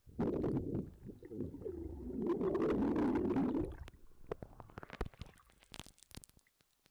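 Muffled bubbling and rumbling of lake water heard through a camera held underwater, loud for nearly four seconds. Once the camera comes out of the water it gives way to faint, scattered clicks and knocks of handling.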